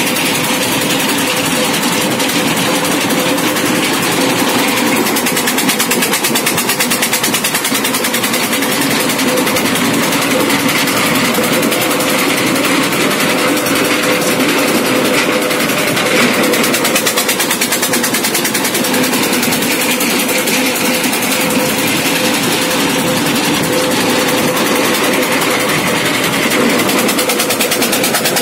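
Ice crushing machine running steadily, a loud continuous mechanical drone with a fast regular pulse as ice blocks are fed in and ground to crushed ice.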